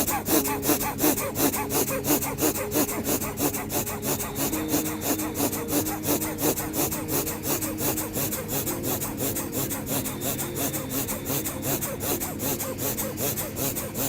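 Rapid, forceful breathing in and out at full speed in an even rhythm, several rushes of air a second: fast bellows-breath pranayama at about 150 breaths a minute.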